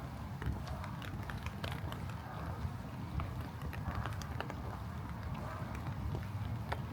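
Walking footsteps on wet pavement in light rain, with many small irregular ticks of raindrops and drips over a steady low rumble.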